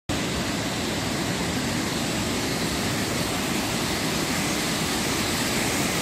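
Steady rush of a mountain stream cascading in white water over rocks and a small weir.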